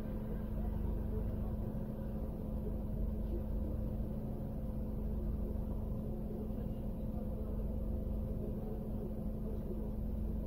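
Steady low hum of a car idling, heard from inside its cabin, with one constant droning tone and no change throughout.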